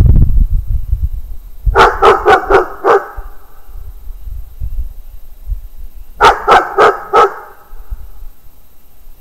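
A dog barking in two quick runs of four or five barks, the first about two seconds in and the second about six seconds in.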